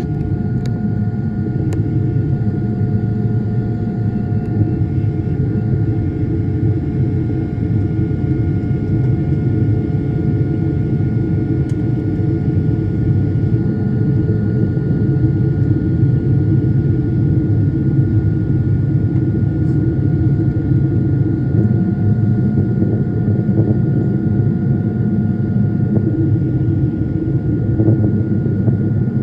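Steady cabin noise of a Boeing 777 in flight: a constant low roar of the jet engines and airflow, with a few thin steady whining tones above it.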